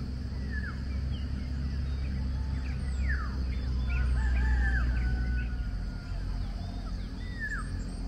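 Several birds chirping and giving short falling whistled calls, over a steady high drone and a low rumble that drops away about six seconds in.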